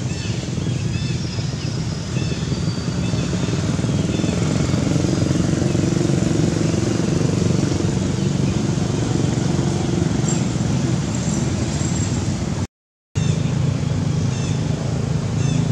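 A steady low engine hum, like a motor running, with faint high chirps over it; the sound cuts out for a moment near the end.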